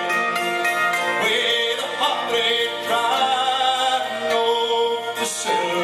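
Irish folk band playing an instrumental passage: a tin whistle carries the melody over strummed acoustic guitar and other plucked strings.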